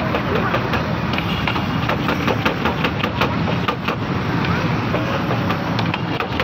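Seasoning shaken from a steel shaker over fries in a paper cup, with many quick clicks and taps, over a steady low engine rumble.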